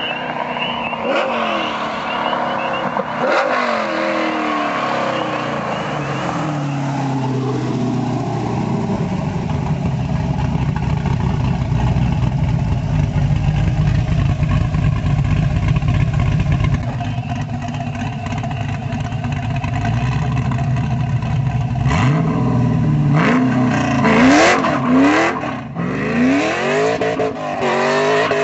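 Modified 6.0-litre V8 of a 1999 Camaro SS accelerating up through the gears and passing by, its pitch falling as it goes. Through the middle it runs steadily at low revs close by. Near the end it pulls hard again, revving up with breaks between the sweeps as it shifts.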